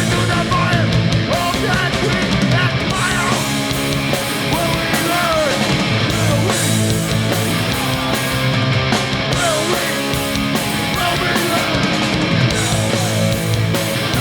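Hardcore punk band playing a song live, loud and dense without a break.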